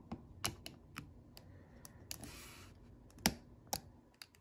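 Hard plastic parts of a Transformers Sandstorm action figure being handled and snapped into place during transformation: a scattered series of sharp clicks, the loudest two a little after three seconds in, with a brief scrape of plastic sliding on plastic about halfway through.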